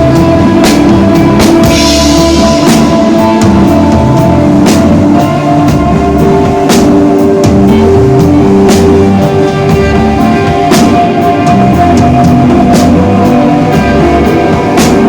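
Rock band playing live, with drum kit, electric guitar and bass: a steady drum beat under long held guitar notes, with a cymbal crash about two seconds in. No singing is heard.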